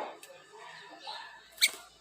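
Birds chirping: a short call right at the start, softer chirps, and a sharp, high chirp about one and a half seconds in.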